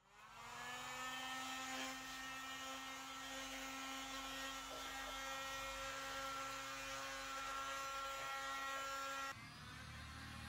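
A small electric motor, such as a power tool's, spins up at the start and then runs at a steady whine. Near the end it stops abruptly, leaving a quieter low hum.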